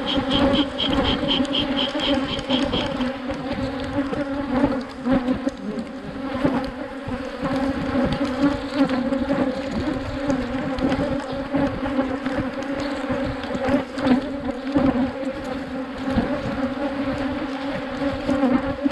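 Africanized honeybees buzzing in a dense mass over an open hive: a steady, even hum with a strong low drone. A faint, rapid high ticking runs for about the first three seconds.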